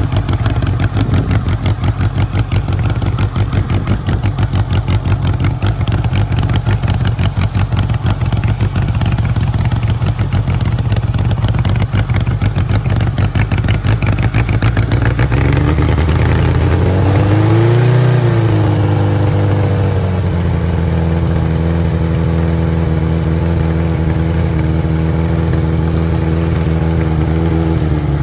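1976 Kawasaki KZ900's air-cooled inline-four running after a cold kick start on choke. It has a rapid, even pulsing idle at first, then settles into a steadier, smoother note about halfway through, with one brief rev and drop near the middle.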